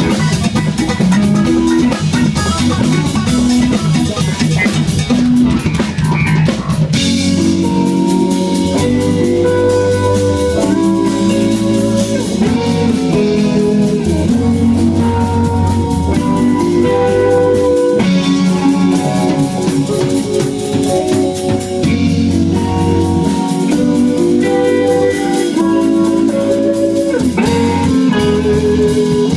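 Live instrumental funk-rock band playing electric guitar, bass guitar and drum kit. About seven seconds in, the dense, busy playing gives way to held chords over a repeating bass figure.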